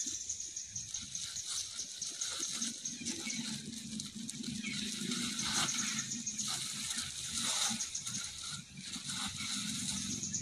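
Outdoor ambience with a steady high-pitched insect drone, pulsing rapidly, over a low background hum, with a few short scuffling sounds around the middle.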